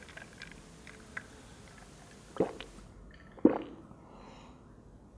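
Close-miked wet, squishy eating sounds of fried instant noodles: faint small clicks, then two louder squelches about two and a half and three and a half seconds in.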